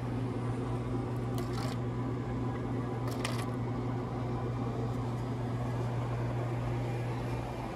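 Steady low machine hum of store appliances, with a few light clicks about one and a half and three seconds in.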